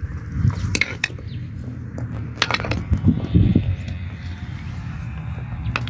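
Smooth river pebbles crunching and clinking underfoot and as they are handled, with three sharp clicks of stone knocking on stone: about a second in, midway, and near the end.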